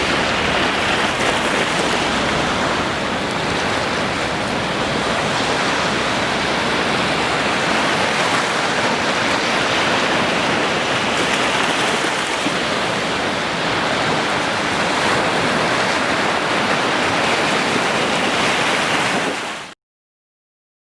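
Ocean waves washing ashore in a steady, dense rush with slow swells every few seconds, cutting off abruptly near the end.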